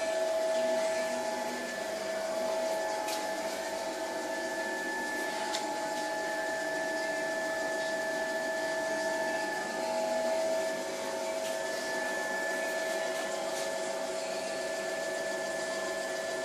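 Optimum Opti B23 Pro bench drill press running with no load: a steady motor hum and whine of several held tones over an even mechanical noise, with a few faint ticks.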